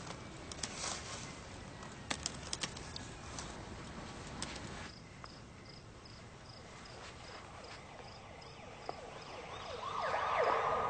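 Scattered light clicks for the first few seconds, then quiet night ambience with a faint high chirp repeating about twice a second, and a siren swelling near the end.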